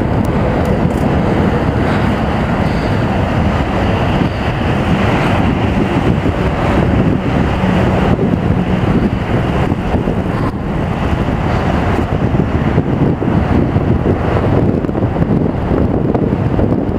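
Steady wind rush buffeting a helmet camera's microphone while riding a mountain bike.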